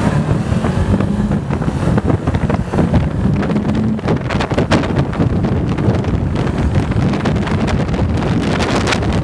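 Wind buffeting the microphone of a motorcycle under way, with the bike's engine running underneath.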